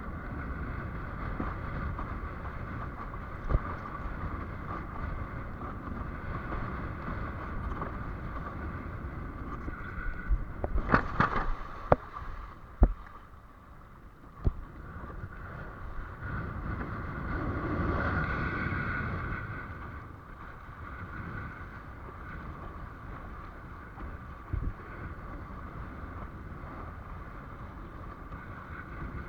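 Steady motor hum with wind on the microphone, broken by a cluster of sharp knocks about halfway through and a brief swell of louder noise soon after.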